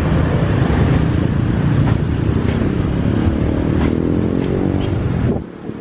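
Passenger coaches rolling past at close range, a loud steady rumble of wheels on the rails with a few light clicks and a rising engine note in the middle. The rumble drops off sharply near the end as the last coach clears.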